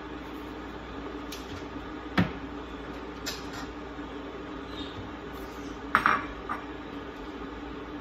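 Kitchen dishes knocking and clinking. There are a few light knocks, then about six seconds in a bowl is set down on the counter with a sharp clink and a brief ring, the loudest sound, all over a steady low hum.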